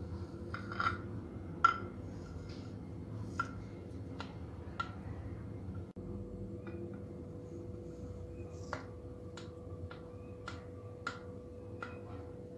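Kitchen knife clicking against the bottom of a glass tray as it cuts through set milk pudding: single light clicks, roughly one a second and sparser in the middle, each with a short ring. A faint steady hum runs underneath.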